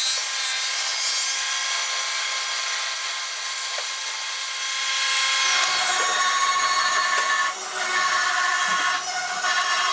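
Table saw running and ripping through a hardwood block: a steady high blade whine with the tone changing about halfway through as the cut goes on, and a couple of brief dips near the end.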